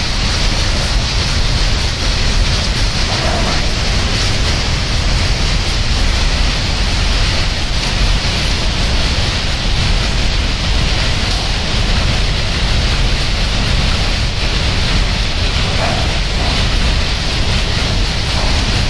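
Steady loud hiss over a low rumble, unbroken and without distinct events.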